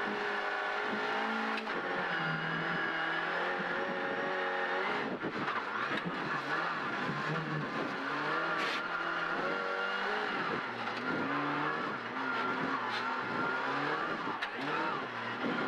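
The 1.6-litre four-cylinder engine of a Ford Fiesta R2 rally car, heard from inside the cabin as it is driven hard. The pitch climbs and drops repeatedly as it revs out and shifts up and down through second, third and fourth gear.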